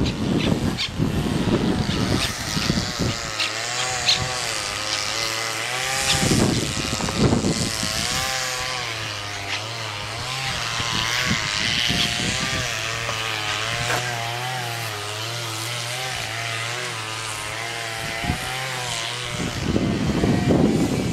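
A light propeller aircraft's engine droning as it flies over, its pitch wavering, fading in a few seconds in and out again near the end.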